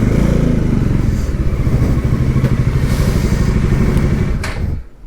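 Motorcycle engine running with a steady, low, fast-pulsing exhaust beat. A short click comes about four and a half seconds in, and then the engine sound stops abruptly.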